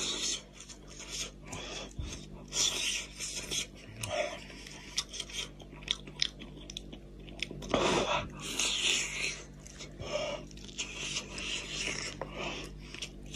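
Close-up eating sounds: a person chewing and biting into spicy goat's-head meat, with irregular clicking mouth sounds and one louder bout about eight seconds in.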